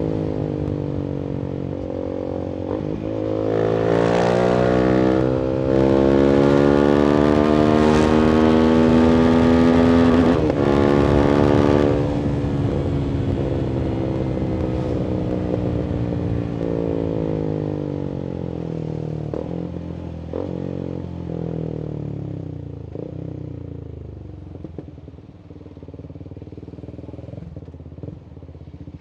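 Voge 300AC's single-cylinder engine through a free-flowing full-system exhaust, pulling hard with its note rising from about three seconds in, with a brief break for a gear change near ten seconds. The throttle closes about twelve seconds in, and the note falls away and quietens as the bike slows.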